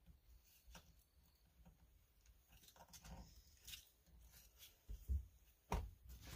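Faint, scattered light clicks and taps of a small hand pick working at the retaining clips on a Husqvarna 240 chainsaw's crankcase, with a soft knock and a sharper click near the end.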